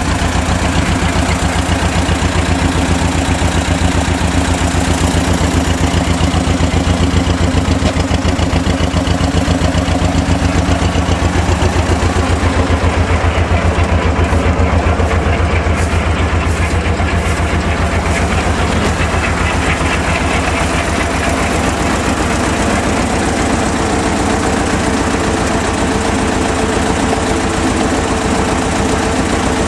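Tractor diesel engine running steadily with a rapid, even throb, driving a hydraulic log splitter through its hoses.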